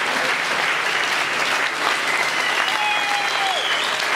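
Audience applauding steadily, with a few whistles in the second half.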